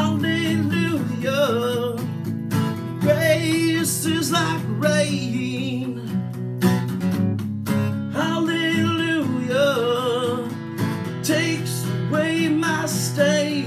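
Song with acoustic guitar strumming under a voice singing long, wavering phrases without clear words.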